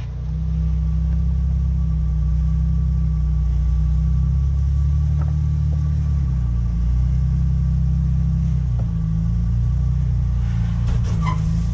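Jeep Wrangler Rubicon's engine running at low revs as it crawls over a boulder, a steady low rumble that swells about half a second in. A few light clicks come near the end.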